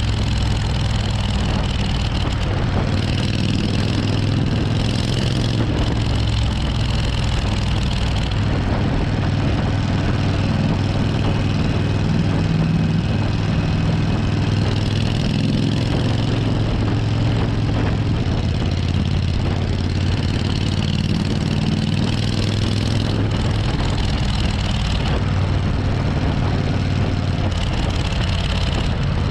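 Suzuki Intruder 1400's V-twin engine running steadily while the motorcycle is ridden along, with a deep, even exhaust note whose pitch shifts a little a few times.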